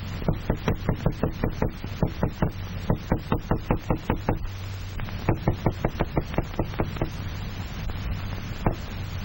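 Small hammer rapped quickly on a tabletop as a sound stimulus, about five knocks a second. The rapping breaks off about four seconds in, starts again for a couple of seconds, then gives a few single knocks near the end, over a steady low hum.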